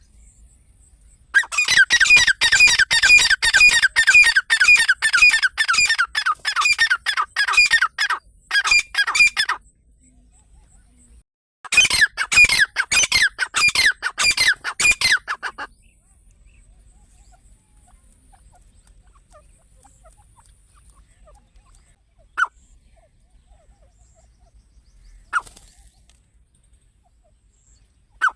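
Partridge (teetar) calling: a long rapid run of harsh repeated notes, a short pause, then a second shorter run, followed by a few single calls spaced several seconds apart.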